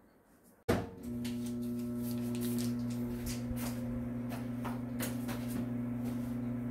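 Microwave oven starts abruptly just under a second in, then runs with a steady electrical hum while it warms a little formula milk. Light clicks are scattered over the hum.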